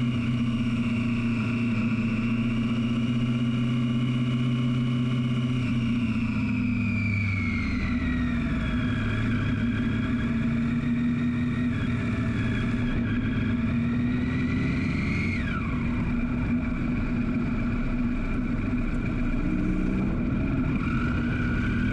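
2012 Triumph Daytona 675R's 675 cc inline three-cylinder engine heard onboard at speed. It holds a steady high note, falls away about six seconds in, climbs briefly and then drops sharply about fifteen seconds in, and picks up again near the end.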